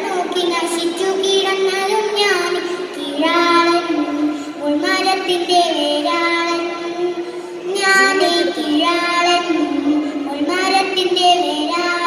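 A young girl singing a Malayalam poem in the chanted, melodic style of kavitha recitation, in phrases of long held notes with short breaks for breath.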